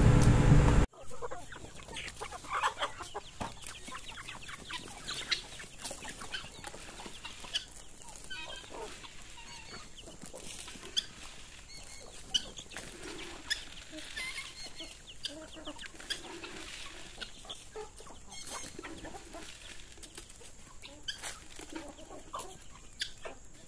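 Chickens clucking on and off, in short scattered calls with light clicks among them. A louder voice fills the first second and cuts off abruptly.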